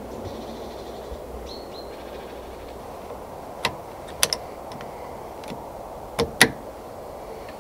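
Two pairs of short, sharp mechanical clicks from a Brocock Compatto air rifle being handled in a wooden hide, over a steady quiet background hiss.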